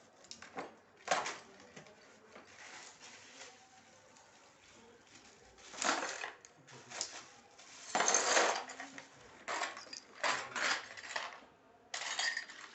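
Metal pieces clinking and clattering as they are handled, a series of irregular knocks and scrapes, with the loudest cluster about two-thirds of the way through.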